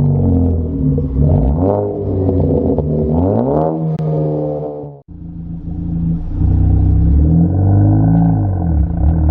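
Tuned MK3 Ford Focus ST engine revving up and down, with sharp crackles and pops from the exhaust as the revs fall: its crackle tune firing on throttle lift. The sound breaks off abruptly about five seconds in, then the revving starts again.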